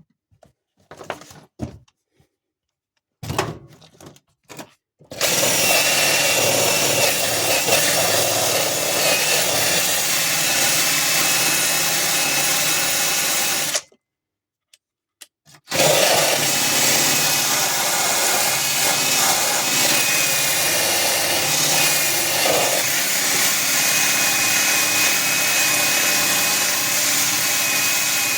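A handheld rotary power tool runs against the steel of a car floor pan, mechanically taking off rust that has been treated with rust converter. It runs steadily with a thin high whine for about nine seconds, stops for about two seconds, then starts again and runs on. A few short knocks and handling sounds come before it starts.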